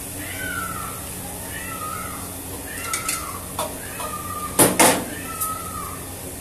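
A metal spatula scraping around a wok while noodles are stir-fried over a high gas flame. It squeaks with a short falling pitch about once a second, and two sharp metal clanks come a little past the middle. A steady low hum runs underneath.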